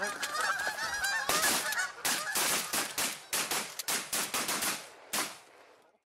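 A flock of geese honking, overlapped and then followed by a rapid string of about a dozen sharp shotgun shots with echo, the last one alone about a second after the rest. The sound fades and cuts off abruptly near the end.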